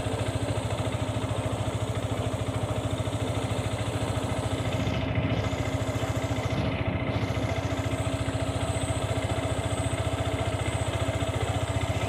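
A small engine idling steadily, with an even rapid pulse.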